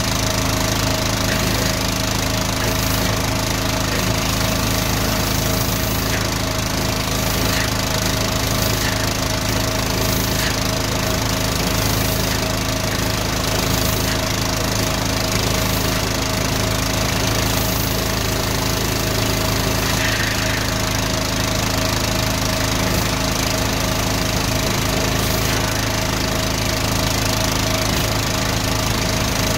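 Van-mounted drain jetter's engine and high-pressure pump running steadily at a constant speed.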